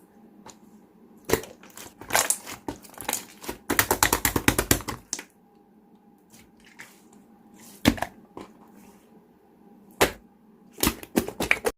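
Clear slime being squeezed and pressed by hand, giving sharp popping and crackling clicks: single loud pops at intervals, a quick run of pops about four seconds in, and another short run near the end.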